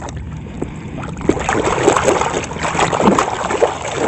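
A hand sloshing and scrubbing a toy in a tub of foamy water, an irregular swishing and splashing that grows louder about a second and a half in.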